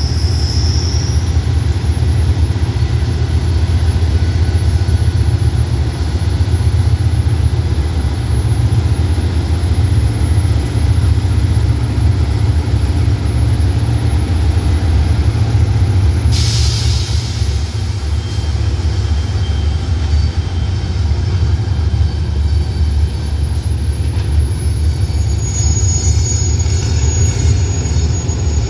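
GE GEA-class diesel-electric locomotive's engine running with a steady deep rumble as it slowly pulls its train past. A sudden burst of air hiss comes about halfway through.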